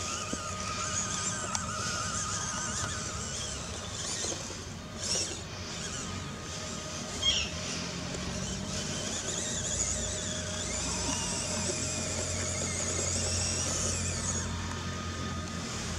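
Small electric motor and plastic gear train of a 1/18 scale RC crawler whining under load as it climbs a rocky slope, the pitch wavering with the throttle. Two brief louder knocks partway through.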